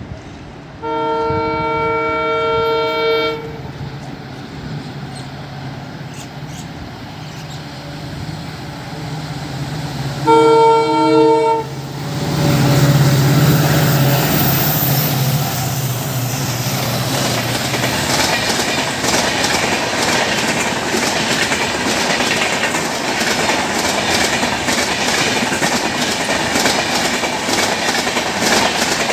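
Two long blasts of a diesel locomotive's chord horn, about ten seconds apart. Then three EMD diesel locomotives pass at speed with a deep engine drone, followed by the coaches' wheels clattering over the rail joints in a fast, steady clickety-clack.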